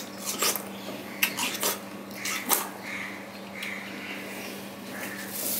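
Biting into and chewing a slice of juicy watermelon close to the microphone: a run of short wet crunches and mouth smacks over the first two and a half seconds, softer chewing after that. A steady low hum runs underneath.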